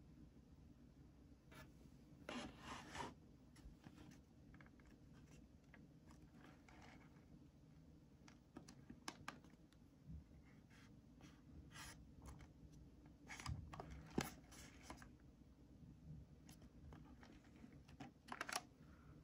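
Faint, scattered clicks, scratches and rustles of a cardboard tea box and its packaging being handled and opened by hand, over a low steady room hum.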